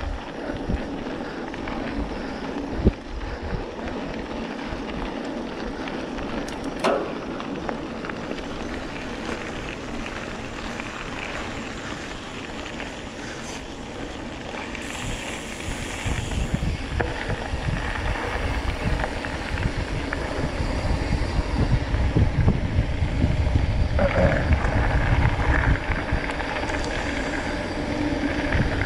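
Mountain bike rolling fast over a gravel dirt road: tyres crunching on loose stones and the bike rattling, with wind buffeting the microphone. Two sharp knocks come in the first part, and the rumble grows louder from about halfway through.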